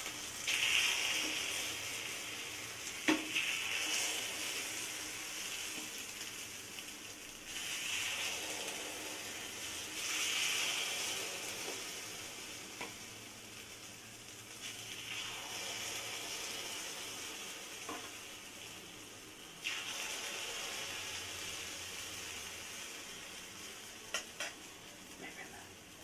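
Spicy egg-and-onion batter sizzling in hot oil as it is spooned into the cavities of a paniyaram pan, the hiss swelling in repeated bursts as each portion goes in. Occasional sharp clicks of the spoon against the pan.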